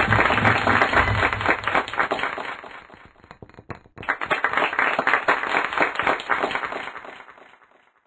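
Recorded audience applause in two swells: the first fades out about three seconds in, a second starts about a second later and dies away near the end.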